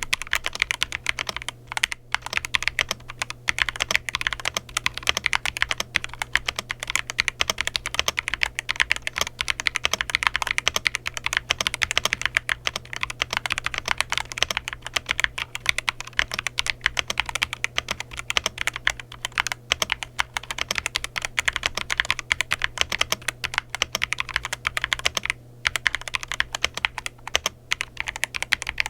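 Fast, continuous typing on a mechanical keyboard fitted with Moondrop Tessence tactile switches (nylon housings, two-stage spring) in a Glorious GMMK 2 65% board: a dense run of keystroke clacks that starts abruptly, with a couple of brief pauses.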